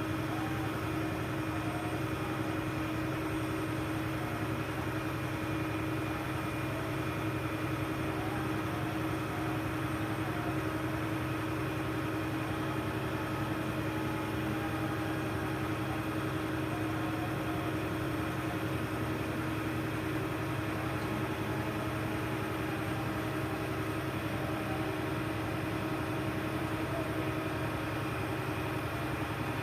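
A crane's engine running steadily with an even hum, no change in speed.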